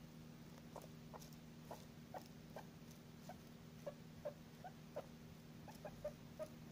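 Guinea pig making a series of short squeaks, roughly two to three a second, while it eats clover and greens, with faint clicks of chewing between them. The squeaks start just under a second in and come closer together near the end.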